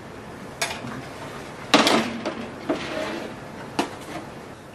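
A metal sheet pan being pulled out of an oven over its wire rack: several metallic knocks and scrapes, the loudest about two seconds in.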